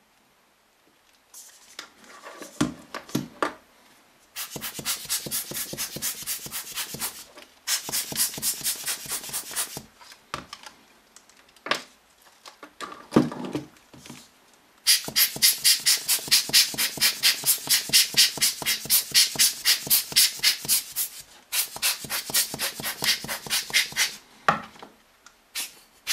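Hand-squeezed rubber air-blower bulb puffing air in quick runs of about five puffs a second, each run lasting a few seconds, blowing dust off a camera lens and body before sensor cleaning. Brief handling rustles and knocks come between the runs.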